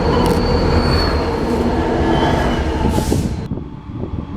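Amtrak passenger train passing close by, wheels rumbling on the rails with a thin high wheel squeal. The noise cuts off sharply about three and a half seconds in as the end of the train goes by.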